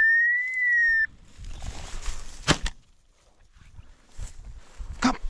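A whistle blown once: a steady high note about a second long with a slight rise and fall in pitch. It is followed by soft rustling, a sharp click about two and a half seconds in, and another near the end.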